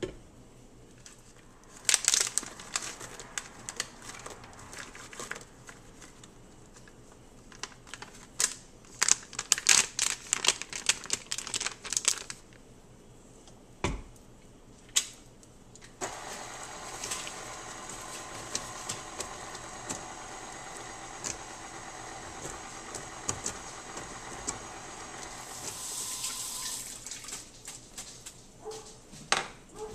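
Clinks and knocks of handling at the mixer for the first dozen seconds. Then a KitchenAid stand mixer's motor runs steadily for about ten seconds, its flat beater mixing walnuts into banana bread batter, and stops near the end.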